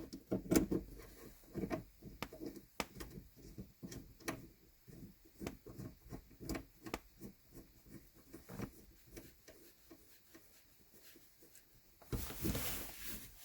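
Irregular light clicks and knocks of hands working on a car's gear-shift linkage while the cross-cable rod end is adjusted, with a rubbing, scraping noise lasting about a second near the end.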